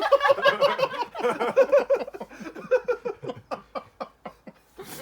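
A person laughing hard: a long run of quick, high-pitched "ha" pulses that gradually fades out toward the end.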